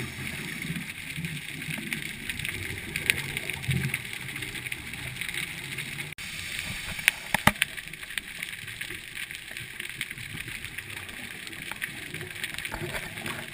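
Underwater sound picked up by a scuba diver's camera: a steady hiss with scattered sharp clicks, and low gurgling of scuba exhaust bubbles in the first few seconds.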